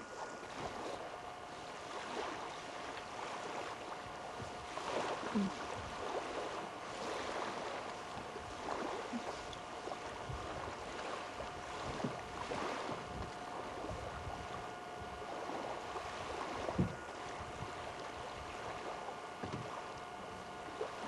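Steady outdoor background noise with a faint steady hum through it and a few soft knocks, the loudest about 17 seconds in.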